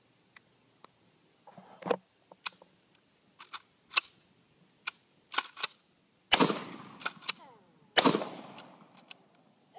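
Kel-Tec KSG 12-gauge pump-action shotgun fired twice, the shots about a second and a half apart past the middle, each blast trailing off over about a second. Sharp mechanical clacks of the pump action come before and between the shots.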